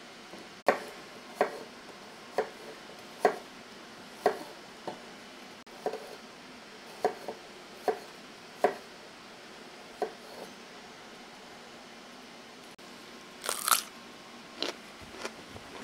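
Kitchen knife cutting vegetables on a cutting board: about a dozen separate chops, roughly one a second, then a short scraping rustle near the end.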